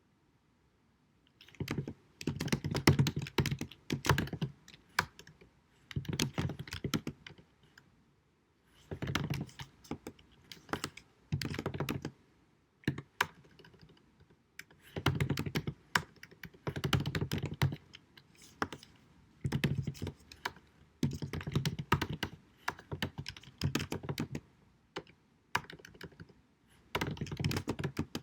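Typing on a computer keyboard in quick runs of keystrokes, each run a second or two long with short pauses between, starting about a second and a half in. Recorded at deliberately low sound quality.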